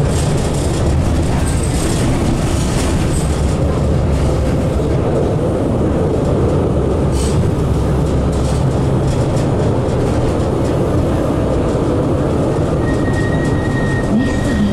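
NGT8B low-floor articulated tram under way, heard from inside: a steady running rumble of motors and wheels on the rails, with a few short clacks. A thin, steady high tone comes in near the end.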